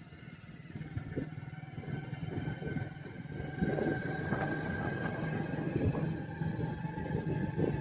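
An engine running steadily with a low hum and a faint whine above it, growing a little louder about halfway through.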